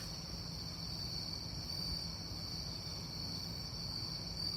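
Crickets trilling steadily at a fairly low level, a continuous high-pitched night-insect ambience with a faint low hum beneath.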